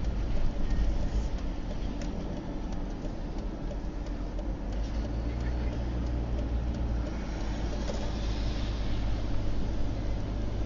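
A car driving along a city street, heard from inside the cabin through the dashcam's microphone: a steady low rumble of engine and tyre noise.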